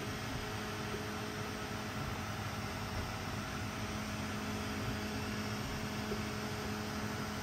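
Steady low electrical hum with an even fan-like hiss over it, as of a cooling fan or mains-powered equipment running.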